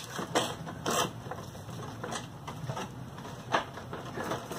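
Scattered sharp clicks and light knocks of a lawn mower's engine shroud and parts being handled by hand, spaced irregularly, over a low steady background hum.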